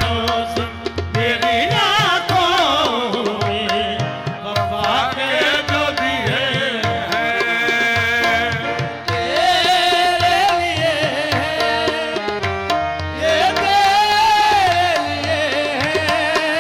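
Qawwali music: a tabla rhythm under a sung melody with held notes and gliding melodic runs.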